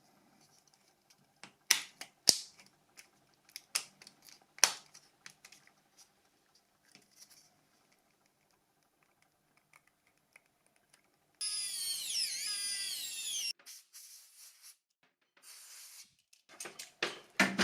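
Plastic housing parts of a Nokia 6233 mobile phone being handled and fitted together: scattered sharp clicks and snaps, and past the middle about two seconds of high squeaking with wavering pitch as plastic rubs on plastic.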